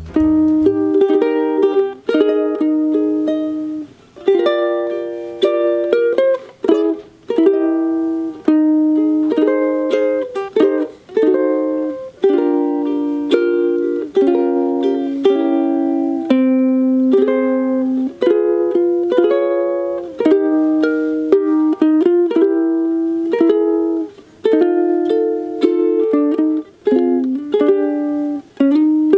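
Locomango CU-250 ukulele with a three-ply laminated mahogany body, played solo. Chords and single notes are strummed and picked in a steady rhythm, each ringing and fading, with a few brief pauses.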